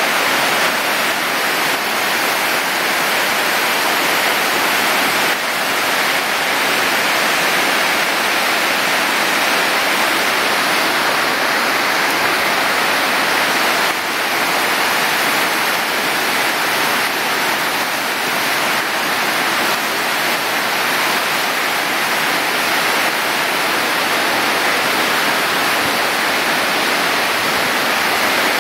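Whitewater rapids of the Wenatchee River rushing, a steady, loud, unbroken noise of churning water.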